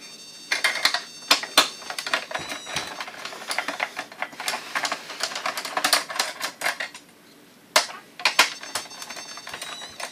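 Small metal parts and linkages inside an opened Kodak Carousel slide projector clicking and clinking as they are handled and worked loose with a screwdriver. Rapid, irregular clicks, with a short lull about seven seconds in followed by two sharp clicks.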